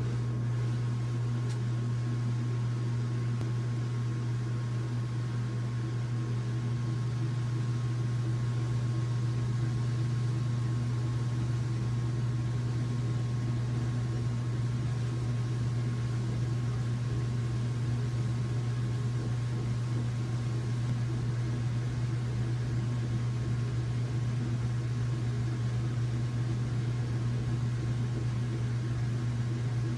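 Washing machine running with a steady low hum that does not change.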